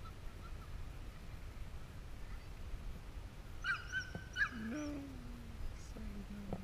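A dog barking twice, short and high-pitched, about four seconds in. Lower drawn-out calls follow.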